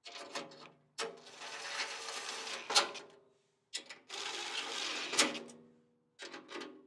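Power driver running in two bursts of about two seconds each with a steady motor whine, driving in the bolts of a catalytic converter shield. A few short clicks come before and after the bursts.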